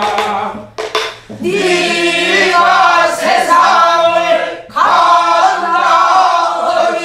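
A woman singing pansori in long, wavering held notes. About a second in come two sharp stick strokes on a Korean buk barrel drum.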